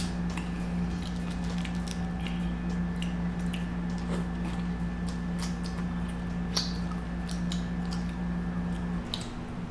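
Close-miked eating sounds of seafood: wet squishing, smacking and small sharp clicks of chewing and handling shellfish, at irregular intervals. A steady low hum runs underneath and cuts off about nine seconds in.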